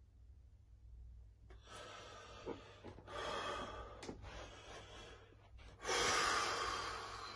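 A man breathing hard through nose and mouth while flexing: a few forceful breaths, the loudest starting about six seconds in and trailing off.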